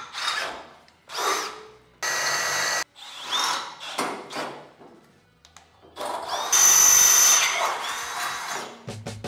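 Power drill boring through the steel frame bracket to open up bolt holes. It runs in several short trigger bursts, each spinning up with a rising whine, then in a longer run starting about six seconds in, the loudest part.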